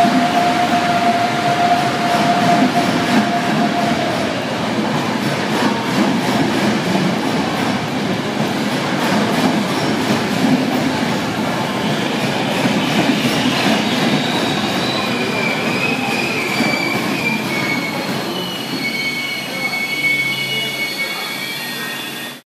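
ÖBB passenger coaches rolling past along the platform, their wheels rumbling on the rails, with a steady whine that fades out about four seconds in. From about halfway through, high squeals set in and carry on as the arriving train slows into the station.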